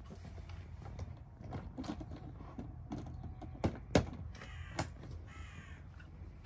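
Sharp clicks and knocks from things being handled on a table, the loudest two a little past halfway, followed by two harsh bird calls about half a second each, like a crow cawing.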